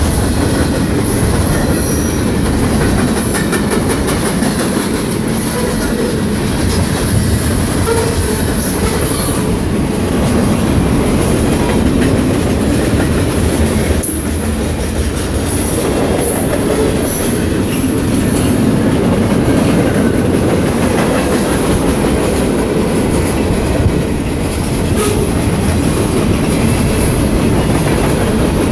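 A long train's railcars rolling past, a steady loud rumble of steel wheels clacking over the rail joints.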